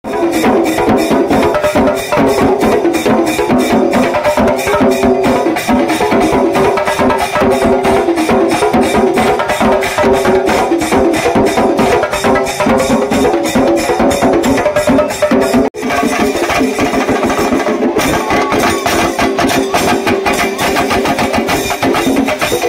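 Chenda drums beaten with curved sticks in fast, dense strokes, an ensemble playing together. The sound drops out briefly about 16 seconds in, then carries on.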